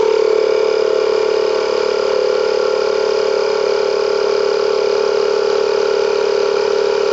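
Honda tyre repair kit's 12 V electric compressor running, a loud, steady hum as it inflates the tyre through the valve after the sealant has been put in.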